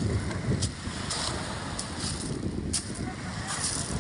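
Sea waves washing and hissing, with wind buffeting the microphone as a steady low rumble.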